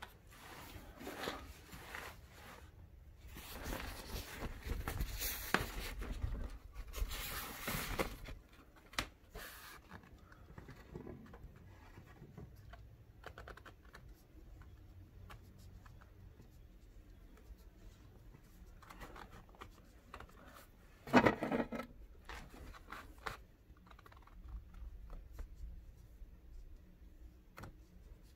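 Handling noise: irregular rustling and scraping as a rock specimen is moved about, with a short, louder scrape about three quarters of the way through.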